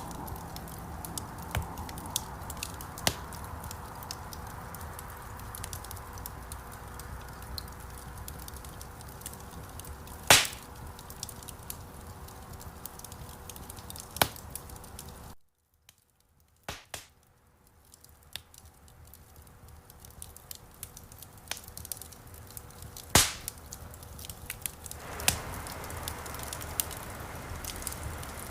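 Wood fire crackling: a steady hiss full of small sharp crackles, with a few loud pops about ten, fourteen and twenty-three seconds in. Around the middle the sound cuts out almost to silence for a couple of seconds, then fades back in.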